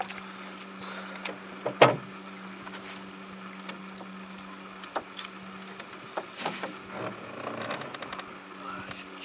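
A boat motor running steadily with a low hum and a faint hiss. There is a sharp knock about two seconds in and a few lighter clicks later.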